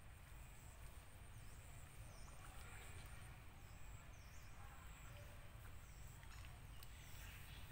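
Near-silent outdoor ambience: a faint low rumble with small high chirps repeating every second or so.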